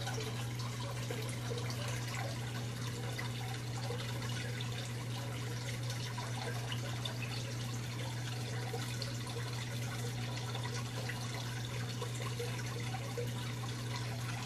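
Steady low hum over an even background hiss, with no distinct events.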